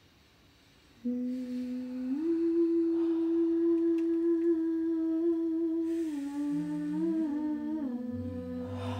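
Group toning: a voice starts humming one long held note about a second in and steps up to a slightly higher pitch a second later. Near the end it wavers, and further held notes join below it, the last very deep, building a drone.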